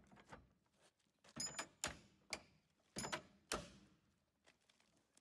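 About half a dozen sharp metallic knocks from the steel ties and wedges of plywood concrete wall forms being set and knocked into place. They come in two clusters, about a second and three seconds in, and some ring briefly.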